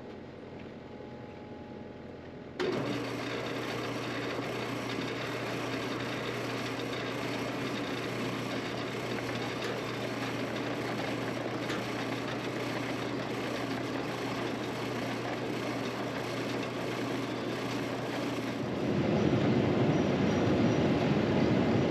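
Heavy machinery running steadily, with a constant low engine hum. The sound jumps abruptly louder about two and a half seconds in and again near the end, as between cut sections of footage.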